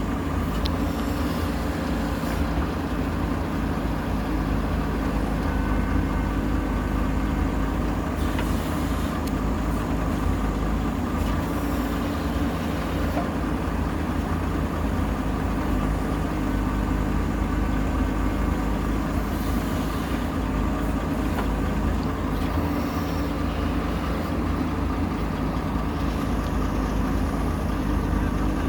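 Heavy diesel engine running steadily at an even pitch, with a few faint knocks.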